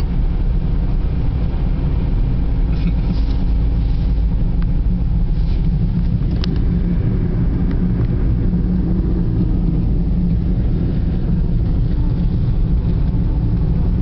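Steady low rumble of a car driving on a snow-covered highway, heard from inside the cabin: engine and tyre noise.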